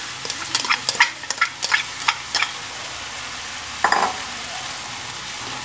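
Sweet corn kernels sizzling in a hot wok, with a quick run of clicks and taps over the first couple of seconds as chopped green onions are tipped from a bowl into the pan. A short, louder knock comes about four seconds in.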